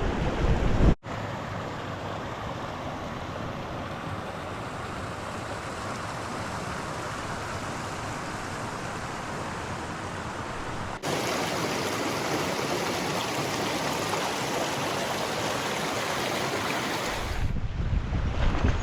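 Steady rush of river water flowing over rocks, broken by two abrupt cuts, about one second and about eleven seconds in, each to a slightly louder stretch of the same rush. Wind buffets the microphone near the end.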